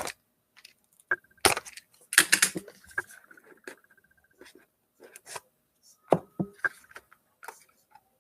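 A sealed box of trading cards being handled and opened by hand: an irregular run of clicks, taps and rustles of cardboard and wrapping, busiest about two seconds in.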